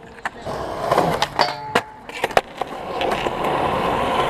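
Skateboard on concrete: the wheels rolling with a rough, steady hum, and a run of sharp clacks of the board hitting the ground in the first half as tricks are popped and landed.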